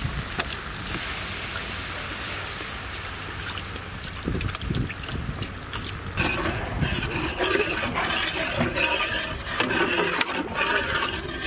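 Milk pouring in a steady stream into a large metal pot of hot tomato purée and ghee. About six seconds in, the pouring gives way to a metal ladle stirring and sloshing through the liquid.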